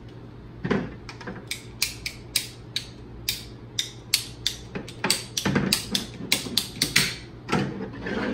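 Ratcheting PVC pipe cutter clicking as its handles are squeezed again and again, the blade working through PVC pipe. A long run of sharp clicks, about three or four a second, starts a little under a second in and grows louder toward the end.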